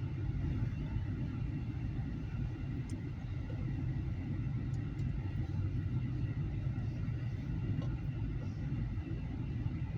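Grain hopper cars of a long freight train rolling past, a steady low rumble of steel wheels on the rails.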